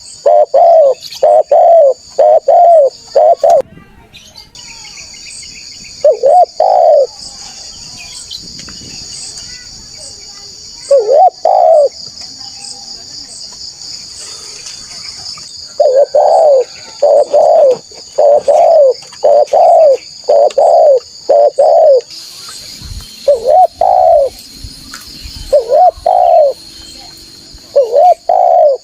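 Spotted dove (tekukur) cooing: loud, rounded coo notes in runs of several, with pauses of a few seconds between the runs. A steady high-pitched buzz runs behind the calls.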